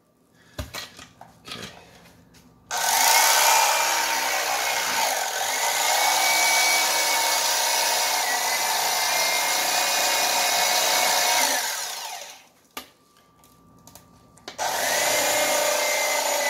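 Electric fillet knife running as it cuts through a jack, its motor whine dipping slightly now and then under load. It runs for about nine seconds, stops with a few small knocks, and starts up again near the end.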